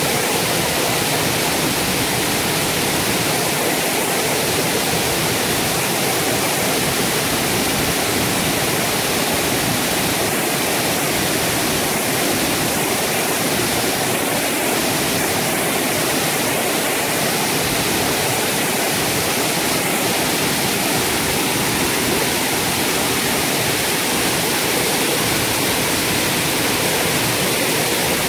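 Waterfall with several streams of water pouring down a rock face into a plunge pool: a steady, even rush of falling and splashing water with no change in level.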